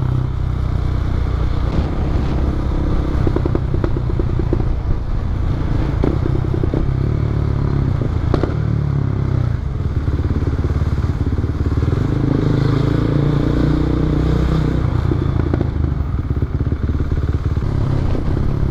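KTM motorcycle with an Akrapovic exhaust, dB-killer removed, running as it is ridden; the engine note eases off about halfway through and then builds again.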